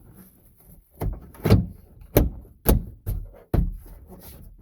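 A 2004–2008 Ford F-150 plastic overhead console being pushed and knocked up into the roof liner, its tension clips snapping into their holes. There are about five sharp thumps, half a second to a second apart.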